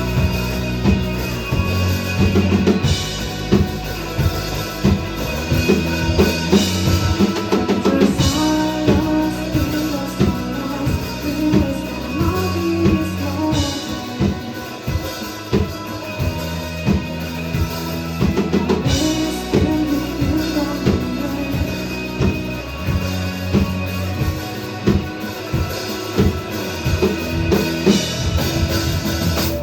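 K-pop dance track with a heavy drum-kit beat, kick and snare hits driving it, cutting off sharply at the end.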